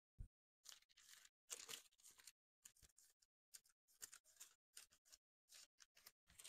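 Thin Bible pages being turned and leafed through by hand: a run of short, soft paper rustles.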